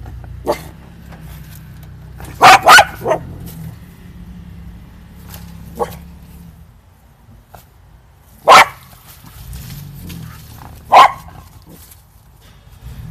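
A dog barking off and on: single barks a few seconds apart, with a quick run of three about two and a half seconds in.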